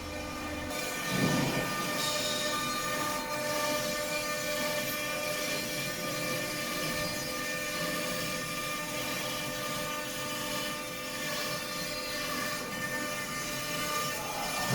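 Vertical CNC stone engraving machine running steadily, its spindle whining on several held tones over a grinding hiss as the tool carves stone, with a brief louder swell about a second in.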